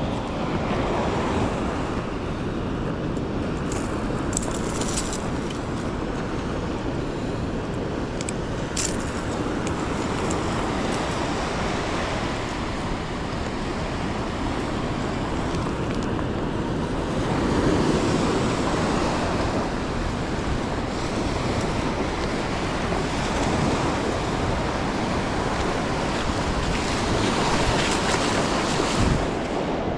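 Ocean surf washing onto the beach, a steady rush of waves that swells louder now and then, with wind on the microphone. A few brief clicks come about four and nine seconds in.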